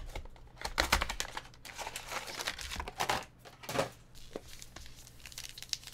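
Trading card pack wrappers being torn open and crinkled, in irregular bursts of crackling and ripping.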